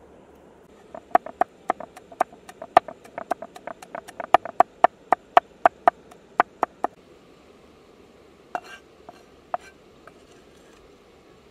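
A cleaver chopping rapidly on a round wooden chopping board, about four sharp knocks a second for some six seconds. After a short pause come a few scattered, lighter knocks.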